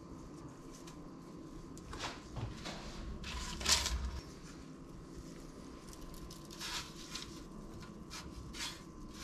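Gloved hands coating a potato-tuna patty in dry crumbs and setting it down on a parchment-lined baking tray: soft scraping and paper rustling, loudest about three and a half seconds in, with a few lighter rustles later.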